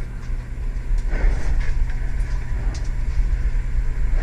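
Steady low rumble of wind buffeting and handling noise on a body-worn camera microphone while the player moves, with a few faint sharp ticks.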